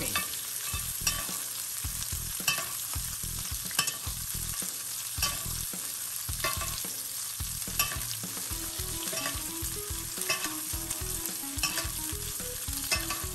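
Garlic butter frying around a roast in a cast iron pot with a steady sizzle as a metal spoon bastes the meat. The spoon clicks against the iron about every second and a half.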